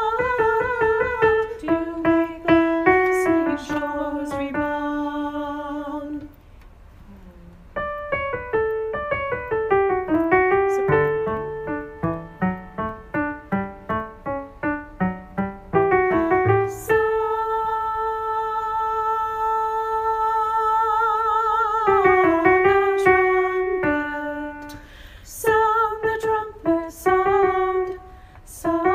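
Piano accompaniment with a voice singing the alto line of a choral piece, as a part-rehearsal track. About two-thirds of the way through, the voice holds one long note with vibrato.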